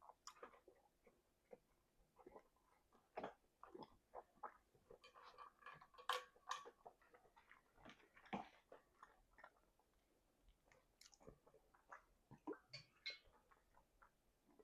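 Soft, close-up chewing: irregular wet mouth clicks and smacks, with a short lull about ten seconds in.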